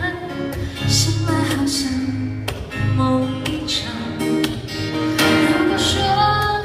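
Live band playing an instrumental passage of a pop ballad, led by strummed acoustic guitar over bass, between sung lines.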